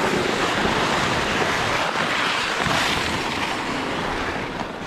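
Two loaded toboggans scraping and sliding over an icy snow trail while a person walks with them: a steady, rough noise.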